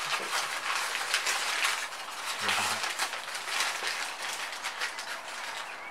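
Newspaper crinkling and rustling as a small glass bowl is unwrapped from it by hand, a continuous crackle of many small crackles.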